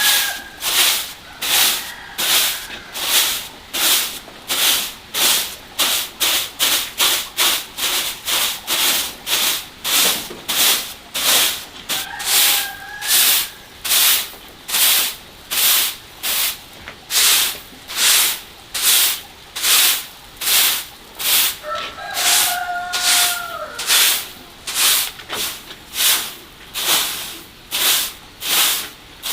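Steady rhythmic scraping strokes on a rough surface, about one and a half strokes a second and each one a hissy rasp. A short pitched call cuts in three times: at the start, about halfway and a little after two-thirds of the way.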